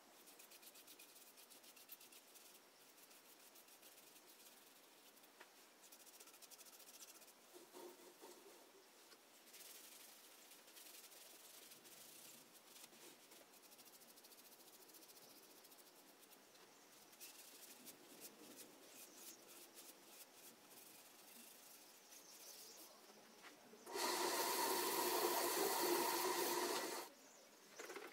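Faint brushing and rubbing as finish is applied to a magnolia hollow form on a wood lathe, with scattered small clicks. About 24 seconds in, a loud steady hum made of several even pitched tones comes in and cuts off abruptly about three seconds later: the lathe's motor running.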